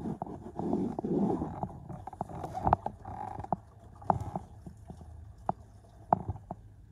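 A dog snuffling and sniffing around in the footwell, with low muffled snorts in the first second or so and scattered light clicks and knocks after.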